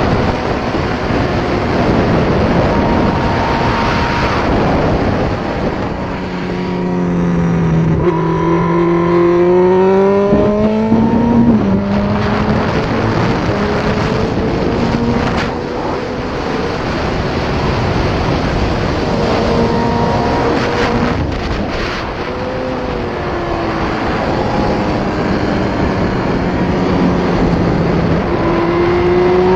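Suzuki GSX-R 1000 K6's inline-four engine at speed, rising and falling in pitch as the rider accelerates and shifts, under heavy wind rush on a helmet-mounted camera. The engine note is clearest about a third of the way in and again near the end.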